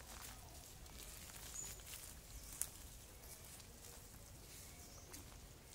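Faint outdoor ambience with scattered light clicks and rustles, one sharper click about two and a half seconds in.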